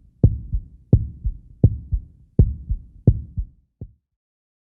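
Heartbeat sound, a steady lub-dub at about one and a half beats a second, fading and stopping a little before the end.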